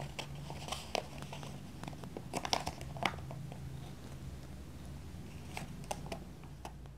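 Sheet of coloured paper crinkling and rustling as it is folded and rolled around a cardboard milk carton, with irregular sharp crackles throughout.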